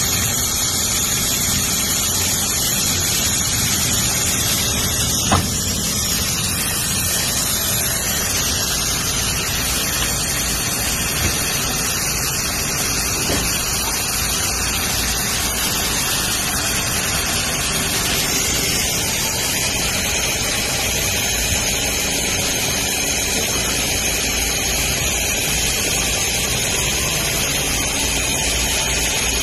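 Richpeace automatic non-stop sewing machine running, a steady mechanical noise with a thin high whine over it, amid factory background noise. A few sharp clicks stand out, the loudest about five seconds in.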